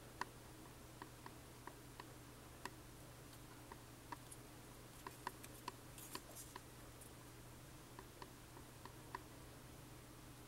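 Near silence with faint, irregular light clicks of a styrene plastic model-kit sprue being handled and turned in the hands, and a brief rustle of handling about six seconds in.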